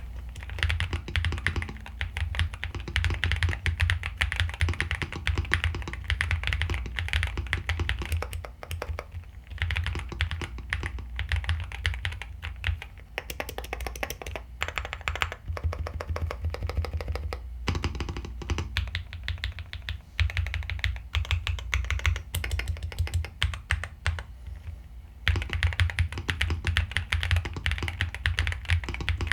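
Typing on a Nuphy Gem80 mechanical keyboard: fast, continuous keystroke clacks in long runs, broken by a few short pauses.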